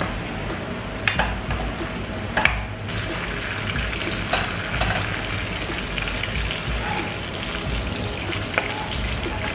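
Sliced onions sizzling in hot olive oil in a nonstick wok, with a spatula scraping as it stirs them and scoops them out. A few short knocks of the spatula against the pan stand out over the steady sizzle.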